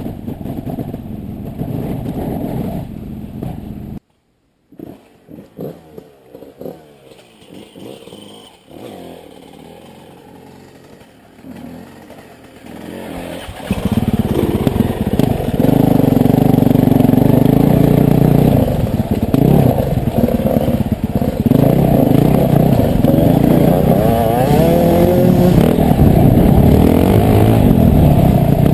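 Dirt bike engine running at low revs, then after a brief dropout a quieter stretch of scattered clatter. From about 14 seconds in the engine is loud under load, revving up and down as the bike rides over rock.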